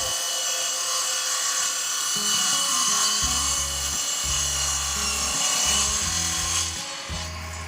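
Homemade table saw driven by a water-pump motor, its many-toothed blade crosscutting wood with a steady high-pitched cutting noise that eases off near the end. The motor keeps turning through the crosscut, a light load compared with ripping along the grain.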